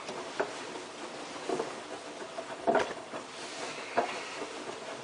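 Hotpoint Ultima WT960 front-loading washing machine in its wash, the drum turning with wet towels and sudsy water sloshing and slapping, irregular soft thuds about once a second over a steady churning noise.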